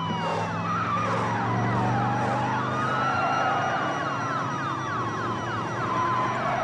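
Several sirens sounding at once, slow rising-and-falling wails overlapping rapid repeated sweeps, over a steady low drone.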